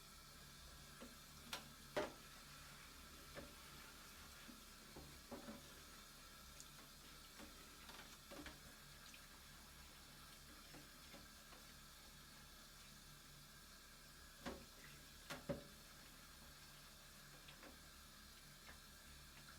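Scattered light knocks and clicks of a kitchen knife and cutting board over faint room tone, irregular and far apart rather than a steady shredding rhythm. A pair of sharper knocks comes about two seconds in and a small cluster around fifteen seconds in.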